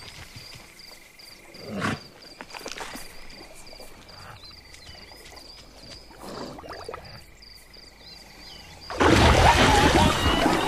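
Cartoon sound effects: a steady, rapidly repeating insect chirp over quiet drinking sounds from zebras at a waterhole. About nine seconds in comes a sudden loud splash as a crocodile lunges out of the water.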